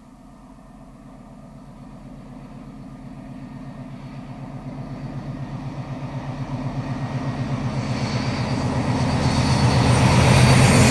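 Class 56 diesel locomotive, Ruston-Paxman V16 engine under power, hauling a railhead treatment train towards the listener: a low, evenly pulsing engine beat grows steadily louder, joined in the last few seconds by the hiss and rumble of wheels on rail as it draws close.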